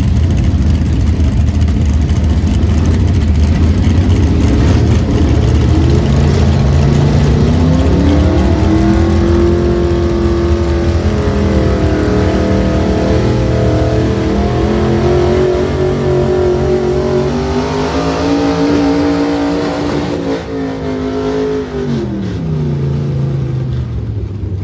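Gas-class pickup truck engine at full throttle pulling a weight-transfer sled. The revs climb over the first several seconds, hold high with a brief dip partway through, then drop about three-quarters of the way in as the pull ends.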